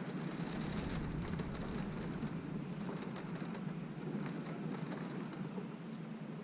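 Wind-driven rain beating on a window: a steady wash of rain with many small, sharp drop hits on the glass, and a low rumble of wind that eases after the first couple of seconds.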